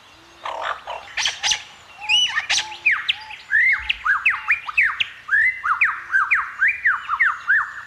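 Male superb lyrebird singing a medley of mimicked calls strung together one after another: a fast run of loud whistled notes, each sliding down or arching in pitch, coming several a second.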